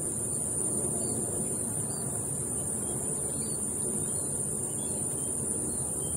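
Wind buffeting the microphone as a steady low rumble, over a steady high-pitched insect drone, with a few faint short chirps.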